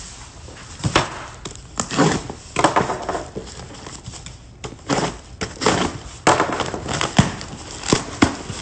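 Cardboard box being opened and handled by hand: an irregular run of sharp crackles, tears and knocks from the cardboard flaps and packaging.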